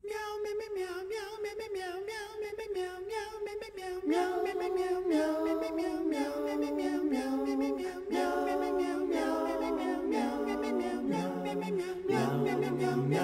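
Intro music of voices singing a cappella in slow, long held notes, choir-like, with new phrases entering about four seconds in, about eight seconds in and again near the end.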